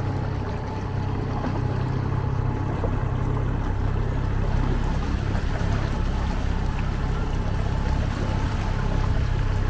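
Small tiller-steered outboard motor running steadily under way on an inflatable dinghy, with water rushing and splashing in its wake.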